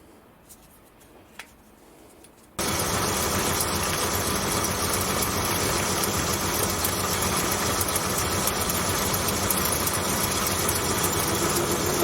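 A homemade Gingery milling machine switched on about two and a half seconds in, its motor and spindle drive then running steadily. A few faint clicks come before it starts.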